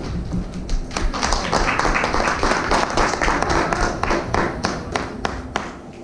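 Audience drum roll: many hands drumming rapidly on desks, a dense rattle of taps that builds about a second in and dies away near the end.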